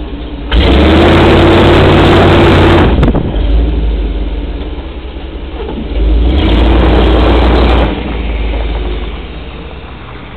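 1994 GMC Sierra pickup's engine running through a Cherry Bomb Pro muffler with the tailpipe cut short before the rear wheel, revved hard twice: once about half a second in for a little over two seconds, and again about six seconds in for a second and a half, settling back to a low rumble in between.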